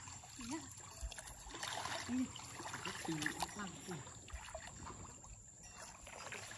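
Muddy pond water sloshing and splashing as people wade through it and grope for fish by hand. A few brief voice sounds come through over it.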